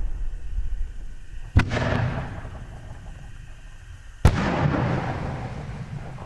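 5-inch canister artillery fireworks shells going off: two sharp bangs about two and a half seconds apart, each followed by a trailing rush of sound that fades over about a second.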